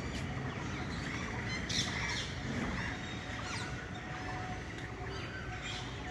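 Outdoor ambience with birds calling now and then: short high chirps and a few falling calls over a steady low background noise.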